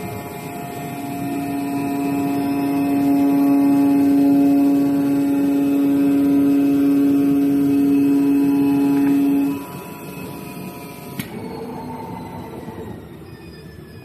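CNC gasket cutting machine running: a steady mechanical hum with a strong held tone that swells in over the first couple of seconds and cuts off abruptly a little before ten seconds in, leaving a quieter machine hum.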